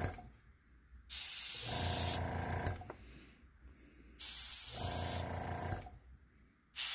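Airbrush spraying paint in short hissing bursts about a second long, three times: about a second in, about four seconds in, and just before the end. A low motor hum sounds under each burst and lasts a little beyond it.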